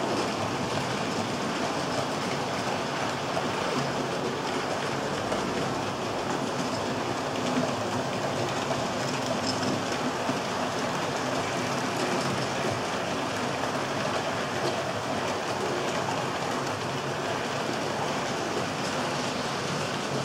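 Model trains rolling past on a layout: the steady whirr of the small electric locomotive motors with the fast clicking of metal wheels over the track joints.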